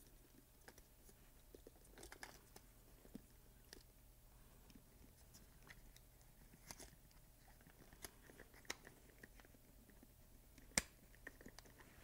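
Faint, scattered clicks and small crunches of the plastic shifter-assembly housing being handled and snapped together, with one sharper snap near the end.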